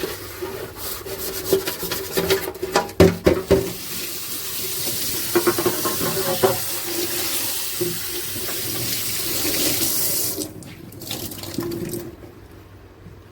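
Kitchen tap running into a sink while fridge drawers and shelves are washed, with knocks and clatter of the parts being handled. The water runs steadily, then stops about ten seconds in, and a few more knocks follow.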